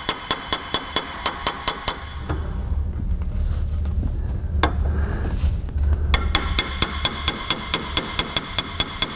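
Light hammer taps on the steel rear lump of a side-by-side shotgun's barrels held in a vise, about four a second with a metallic ring, knocking down the burr raised on the sides of the bite. The tapping stops for a few seconds in the middle, with one lone tap, then resumes.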